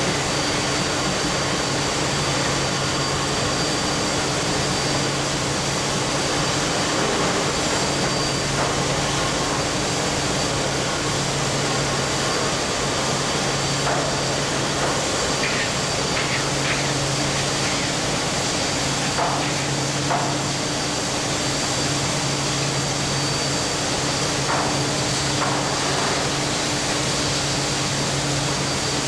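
Steady roar and low hum of steelworks plant machinery, with a few faint clanks in the second half.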